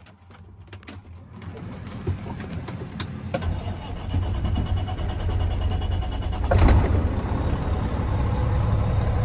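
Freightliner semi-truck's diesel engine starting and settling into a steady low rumble, growing louder over the first few seconds. There is a short sharp burst of noise about six and a half seconds in.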